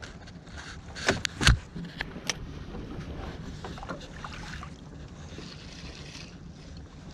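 A few sharp clicks and knocks from handling a spinning rod and reel in a small boat, bunched between about one and two and a half seconds in. A steady low wash of wind and water runs underneath.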